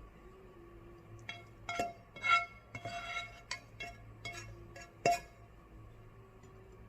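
Dishes clinking together: a quick run of light knocks, each with a short ring, the sharpest about five seconds in.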